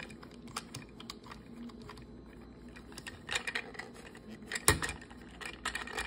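Irregular small plastic clicks and taps as a Decoy Detonator toy is handled and the knob on its top is turned, with one louder knock about four and a half seconds in.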